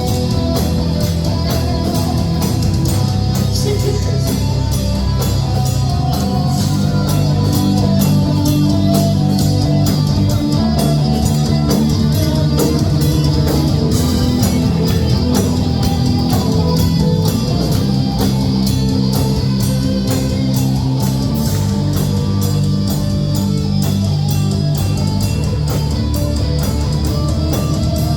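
Rock band playing live: guitars and bass over a drum kit keeping a steady beat.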